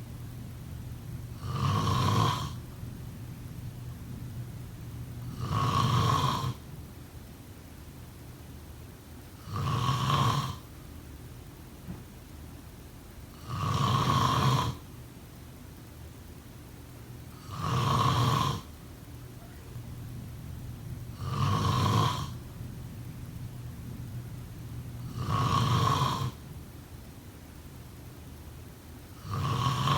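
A person snoring in a slow, even rhythm, one snore about every four seconds, each lasting about a second.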